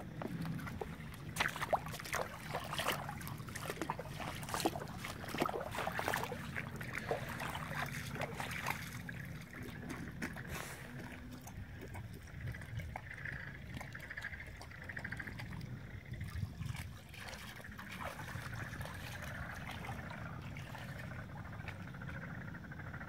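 Shallow floodwater splashing and trickling: irregular sharp splashes and clicks through the first half, then a steadier, quieter background.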